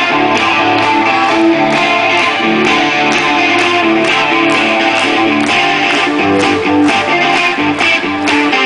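Live rock band playing loud amplified music, led by electric guitars playing the song's opening with a steady beat.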